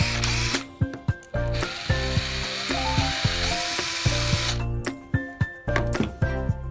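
Makita TD022D pen-type impact driver running with no load, in two runs: a short one that stops about half a second in, then one of about three seconds from about a second and a half in. It is a test run after reassembly, and the repaired tool works.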